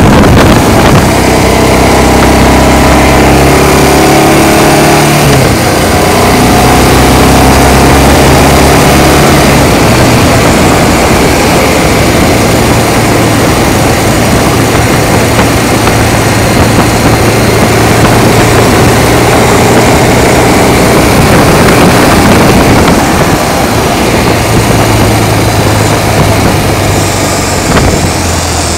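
Motorcycle engine running under way, its note rising and dropping a few times with throttle and speed, under heavy wind rush on the microphone.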